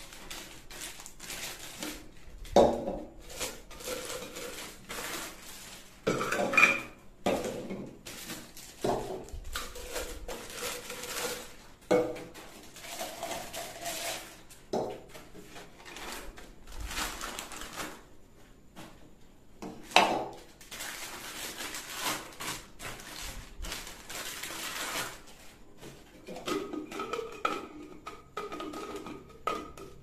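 Clear plastic blender jars, lids and blade assemblies being handled and set down on a hard table: irregular knocks and clatter. Between the knocks, the plastic wrapping crinkles as the jars are unwrapped.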